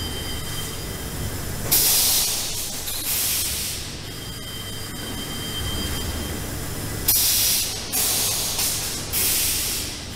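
Automatic yarn-bobbin bagging machine running: a steady low hum with a faint high whine, broken by five sharp hisses of compressed air, two early on and three close together near the end.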